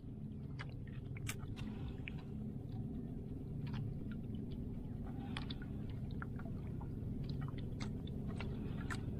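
Water lapping against a small outrigger boat's hull: a steady low rumble with irregular small clicks and splashes.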